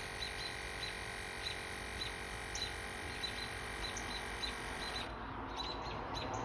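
Fanttik APEX portable air compressor running with a steady hum while inflating a bicycle tyre; the hum stops abruptly about five seconds in and gives way to a rougher noise. Birds chirp briefly and repeatedly throughout.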